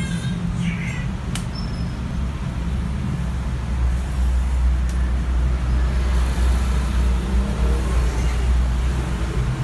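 Generator set engine running with a steady low rumble that grows louder about four seconds in, with a sharp click about a second and a half in.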